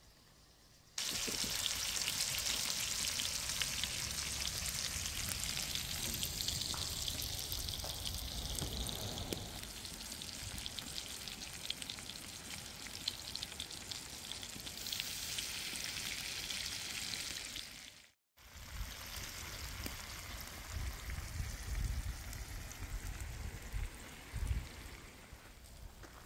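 Meat patties sizzling and spitting in a cast-iron skillet over a campfire, starting about a second in. After a brief break the sizzle carries on more softly, with some low rumbling under it.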